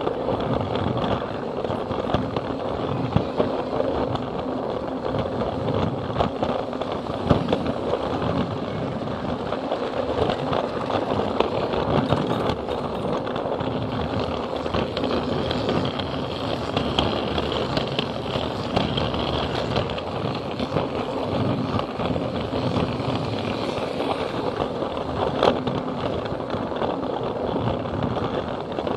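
Plarail toy train's battery motor running and its wheels rattling along plastic track, heard close up from the camera car riding on the train: a steady rattle with frequent small clicks at the rail joints.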